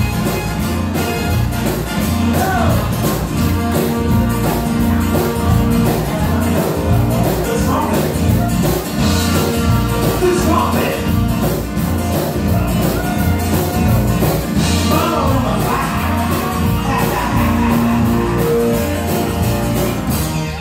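Live band playing a mambo with a steady dance beat, keyboard and bass.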